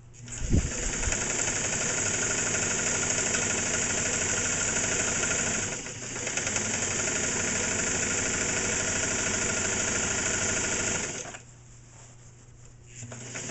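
Singer 237 sewing machine running at high speed, stitching through stacked layers of heavy fabric. It starts with a low thump, dips briefly about six seconds in, stops about eleven seconds in and starts up again near the end.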